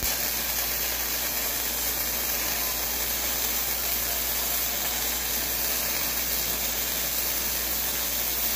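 Wire-feed welding arc on steel plate, a steady sizzling hiss as the bead is run.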